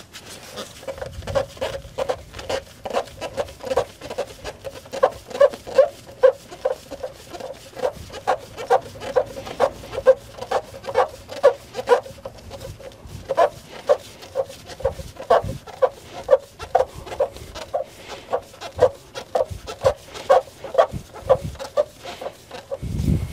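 Short, repeated squeaks, about two or three a second, as a fuel filter is turned by a gloved hand onto its long-threaded mount on a Cummins ISX15 diesel. A low thud comes just before the end.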